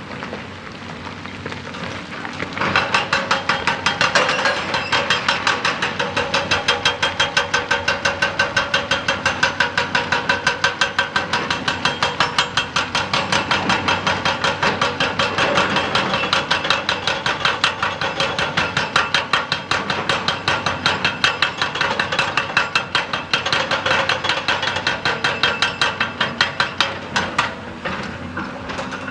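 Excavator-mounted hydraulic rock breaker hammering rock in a rapid, steady rhythm of blows. It starts about two and a half seconds in and pauses briefly near the end.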